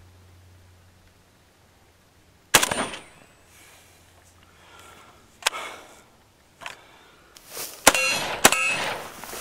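M+M M10-762 semi-automatic AK-pattern rifle in 7.62x39 firing four single shots. The first two are a few seconds apart and the last two come about half a second apart near the end. The last shots are followed by a metallic ringing, like a struck steel target.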